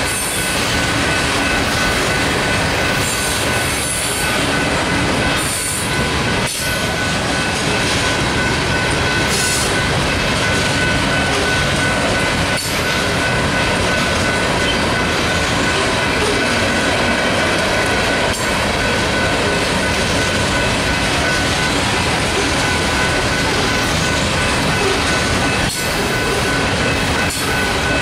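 Iron ore hopper cars of a freight train rolling past: a loud, steady rumble of steel wheels on rail, with a thin high tone held throughout and sharp clicks every few seconds as wheels pass over rail joints.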